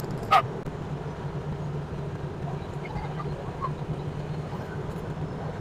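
Steady low hum of a motor vehicle running at an even pace, with a sharp knock just after the start.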